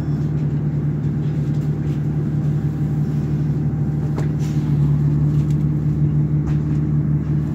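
Cummins ISL diesel engine of a 2009 Nova Bus LFS running at a steady idle, heard from inside the passenger cabin as a constant low hum. A few faint ticks come through about four seconds in.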